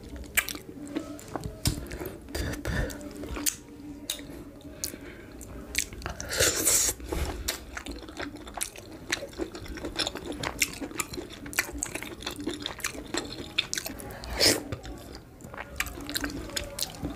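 Close-miked wet chewing and mouth sounds of eating soft amala with slimy ewedu and gbegiri soup: repeated lip smacks and sticky clicks, with a louder, longer wet sound about six seconds in and a sharp smack near the end.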